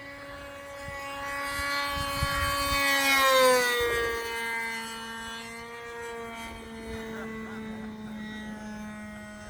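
Glow-fuel engine of a radio-controlled P-51 model plane flying past: a steady high-pitched buzz that grows louder, peaks about three and a half seconds in, and drops in pitch as the plane goes by, then runs on a little quieter and lower.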